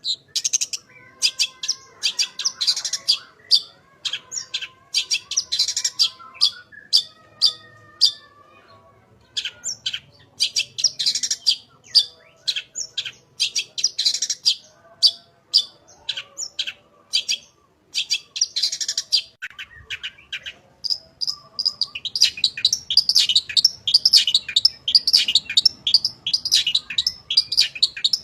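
Long-tailed shrike (cendet) singing: a run of short, sharp chattering notes with a softer warble beneath them early on, turning into a denser, unbroken rapid chatter about two-thirds of the way in.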